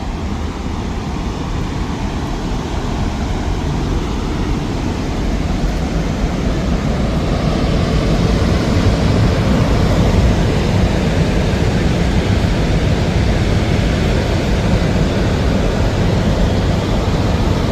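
High water pouring over Lake Clementine Dam: a loud, steady rush of falling water, heaviest in the low end, growing louder over the first several seconds and then holding steady.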